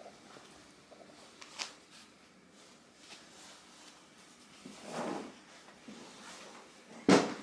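Soft rustling and handling noises from dressing a baby: a light click early, a soft rustle about two thirds in, and a sharp knock near the end, which is the loudest sound.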